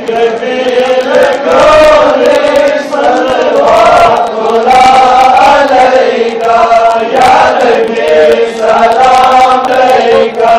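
A group of men chanting a devotional recitation in unison, the melody rising and falling over a steady held tone.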